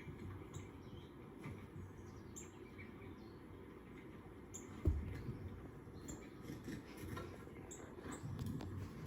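Small birds chirping from a television's speaker: short high chirps every second or two. A single dull thump about halfway through is the loudest sound.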